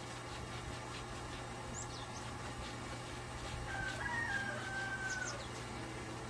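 A rooster crowing once, one long call a little under two seconds long starting nearly four seconds in. A few short high bird chirps come before it, over a steady low hum.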